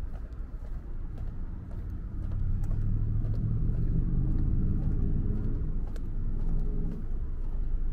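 Street traffic rumbling, with one motor vehicle's engine swelling as it passes close by from about two seconds in and dropping away at about seven seconds.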